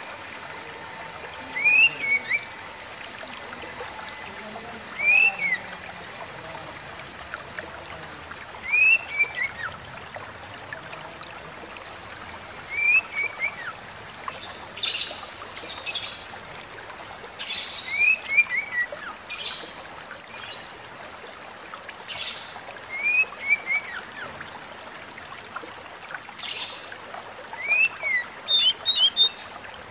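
Oriental magpie-robin calling: a short whistled phrase that rises then falls and ends in a few quick notes, repeated about every four seconds over the steady sound of running water. From about halfway through, sharp high clicks join in between the phrases.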